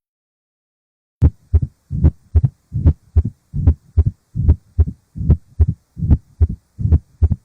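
Recorded heart sounds: an even run of dull lub-dub thumps, close to three a second, starting a little over a second in.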